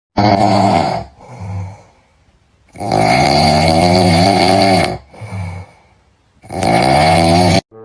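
Loud snoring: three long, rasping snores, each followed by a shorter, fainter breath out.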